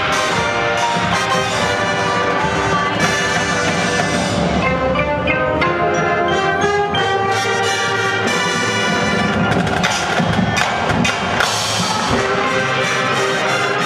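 Marching band playing: brass over drums and mallet percussion. Around the middle the brass drops back and short struck percussion notes carry the music for a few seconds, then the full band comes back in.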